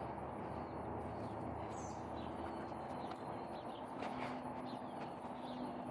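Faint bird chirps over steady outdoor background noise, with one brief noise about four seconds in.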